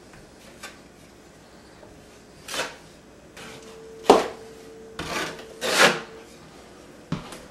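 Broad drywall knife scraping all-purpose joint compound across a drywall patch in several short strokes, most of them between about four and six seconds in, with a couple of light clicks.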